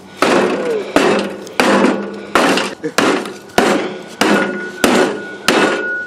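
Shovel blade striking the metal casing of a wrecked microwave again and again, about nine hard blows in an even rhythm of roughly one and a half a second, each with a brief metallic ring.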